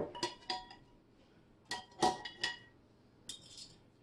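Metal kitchen tongs clinking against a glass bowl while chicken wings are dipped in sauce. Three short clusters of sharp taps, each with a brief ringing.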